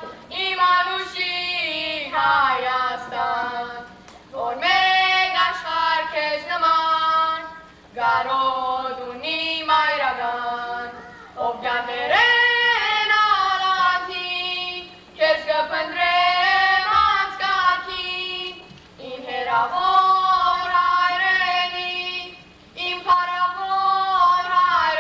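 Young voices singing an Armenian song unaccompanied, in phrases of three to four seconds with short breaks between them.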